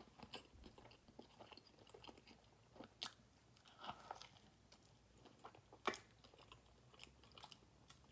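Faint close-up chewing and biting of a fried chicken sandwich, with a few sharp mouth clicks.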